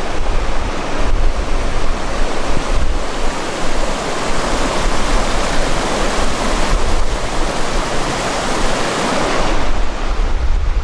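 Flooded creek water rushing steadily, with wind buffeting the microphone.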